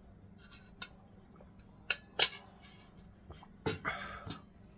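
Tableware being handled while eating: a few sharp clicks and clinks, the loudest about two seconds in, then a short scraping rustle near the end.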